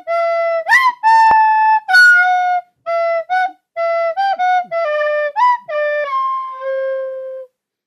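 A flute-like wind instrument plays a slow melody of single held notes, one at a time, with short upward slides into some of them. It ends on a long lower note about seven and a half seconds in.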